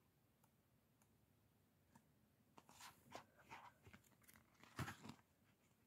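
Faint handling sounds of a children's board book being leafed through and closed: soft rustles and a few light taps of thick card pages, starting about halfway through, with the loudest knock near the end.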